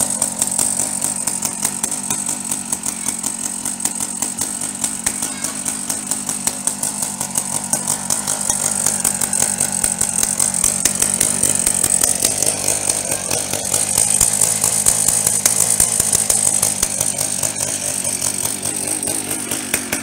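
A small 63cc two-stroke engine on a stand-up gas scooter, idling steadily with a fast, even beat.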